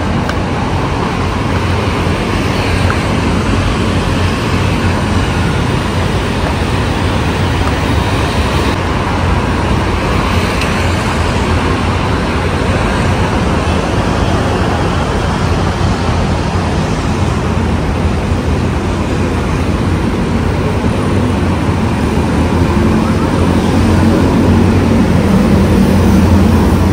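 Steady city road traffic from cars and motorbikes on a busy multi-lane road: a continuous low rumble under a broad hiss, getting a little louder near the end.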